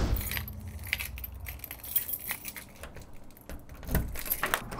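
Keys jangling and clicking against a front-door deadbolt lock as the door is unlocked, in a run of short metallic rattles and clicks.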